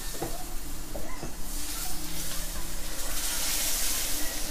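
A few light spoon taps on the pan in the first second or so, then a steady hiss of appam batter cooking in a hot non-stick pan, loudest near the end.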